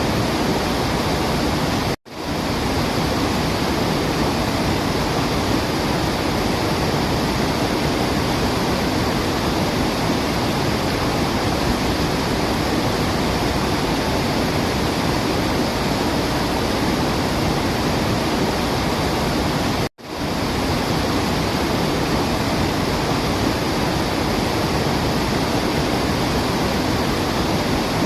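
Steady rushing of falling water, a dense even hiss with no birdsong heard. It cuts out to silence twice for an instant, about two seconds in and again about two-thirds of the way through, and swells straight back, like the seams of a looped recording.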